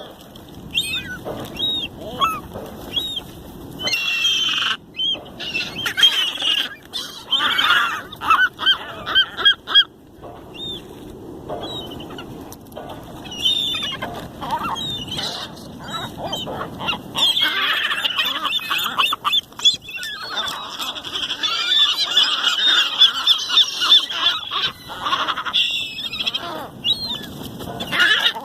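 A flock of seagulls squawking and calling over one another as they squabble over food. The calls are short and overlapping, and they thicken into a near-continuous din in the second half.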